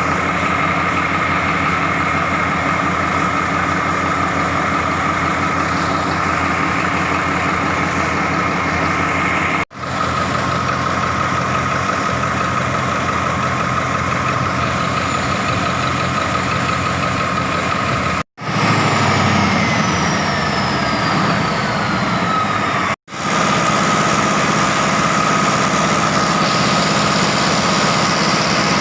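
Caterpillar 3508 V8 diesel engine running steadily on a test stand after overhaul, a deep rumble with a steady high whine over it. It cuts off abruptly three times, and in one stretch a faint whistle falls in pitch.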